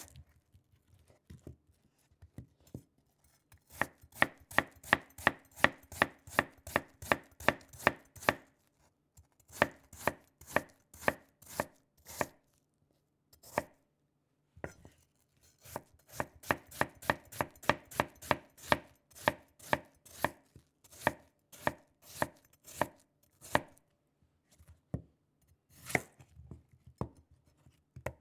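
Rapid, evenly paced sharp knocks, about four a second, in runs of several seconds with short pauses between them. A faint low hum sits under the knocks.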